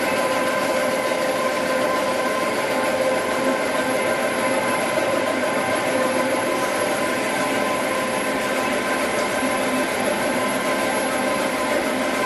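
Dry offset cup printing machine running steadily: a continuous mechanical drone with a few constant tones, and no let-up or change in speed.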